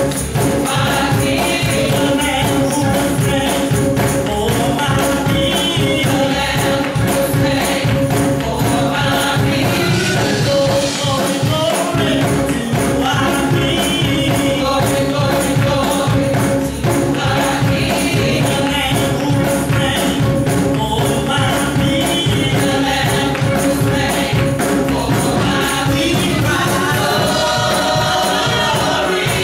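Gospel praise team singing in harmony into microphones, a lead voice over the group, backed by keyboard and a steady percussion beat.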